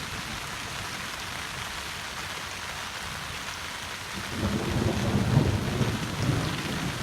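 Heavy rain falling steadily. About four seconds in, a low rolling rumble of thunder builds and carries on.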